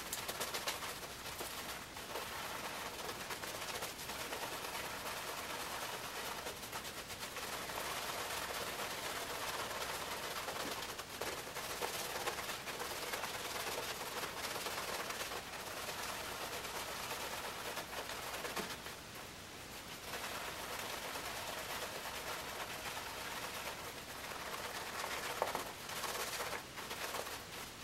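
Boar-bristle shaving brush (Omega 10080) swirled over a soap-covered face to build lather: a steady wet, crackly hiss that eases off briefly about two-thirds of the way through. The lather is coming up foamy with big air bubbles instead of thick and dense.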